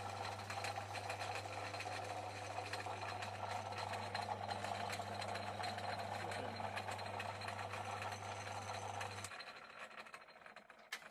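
Portass Model S mk2 mini lathe running under its electric motor: a steady hum with a fast, even whirr and rattle from the change-gear train driving the lead screw. It is switched off about nine seconds in and the sound dies away over the next two seconds as the lathe coasts to a stop.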